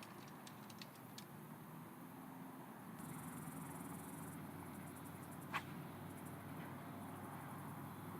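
Faint outdoor ambience with insects chirring at a high pitch from about three seconds in. A few light ticks come near the start and one sharp click about five and a half seconds in.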